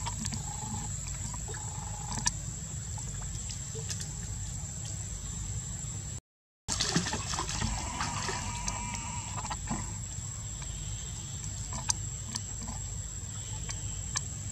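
Water trickling, under a steady high-pitched whine and a low rumble, with a few faint clicks. The sound cuts out for a moment about six seconds in.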